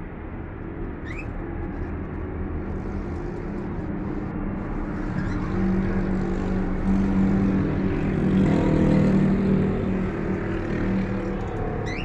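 Street traffic noise, with a motor vehicle's engine hum growing louder toward the middle and fading near the end. A short, high, rising chirp comes about a second in.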